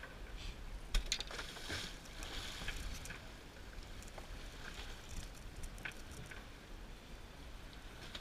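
Water lapping and splashing against a small boat's hull, with scattered small knocks and clicks and one louder knock about a second in.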